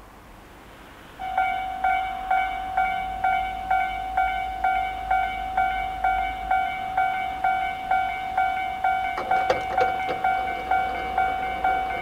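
Japanese railway level-crossing alarm switching on about a second in: the standard Tobu Railway type electronic bell, a ringing ding repeated about twice a second, signalling that a train is approaching. A brief clatter of clicks comes about nine seconds in.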